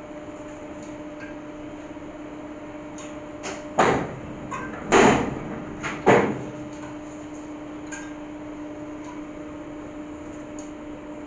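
Heat-seal label press: a steady machine hum, with three loud metal clanks about a second apart near the middle as its parts are worked.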